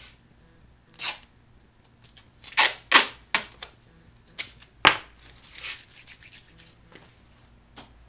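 Duct tape being pulled off the roll and torn: a string of short, sharp rips, the loudest several close together between about two and a half and five seconds in.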